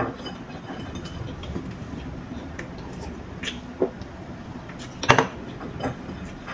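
Eating sounds: chewing fried chicken with small mouth clicks, then a sip from a soda can. A little after five seconds in there is a sharp knock, the can being set back down on the table. A steady low rumble runs underneath.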